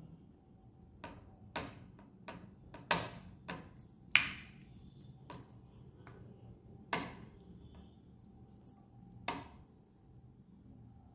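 Sharp clicks and knocks of a plate and utensils on a glass tabletop as rice and chicken curry are mixed by hand, about nine at uneven spacing, the loudest about four seconds in.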